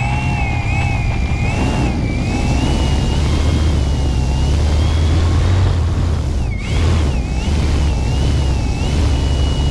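Electric motor and propeller of an E-flite Night Timber X RC plane whining as it taxis over grass, the pitch wavering with the throttle, over a heavy low rumble. About two-thirds through the pitch drops sharply, then rises again.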